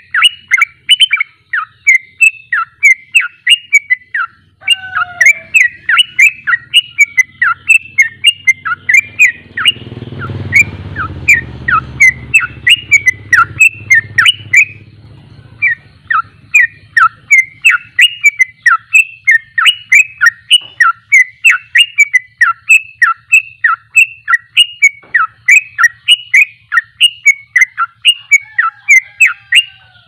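Yellow-vented bulbul singing a rapid, continuous run of short, loud chirping notes, about three a second, with two brief breaks. A low rumble swells under the song near the middle.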